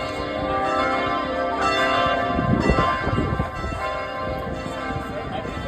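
Church bells ringing, several bell tones sounding and overlapping. A burst of low rumbling noise comes about halfway through.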